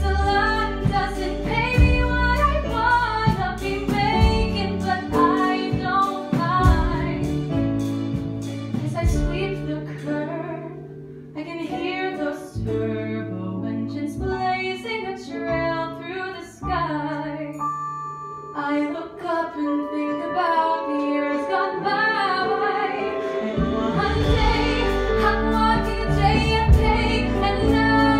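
A woman singing a solo stage song over instrumental accompaniment, with a softer passage about ten seconds in.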